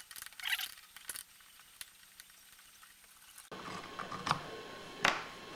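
Faint scraping and clicking of small metal carburetor choke parts being handled and worked apart by hand: a few light scrapes at the start and two sharper ones near the end. A faint steady hiss comes in about three and a half seconds in.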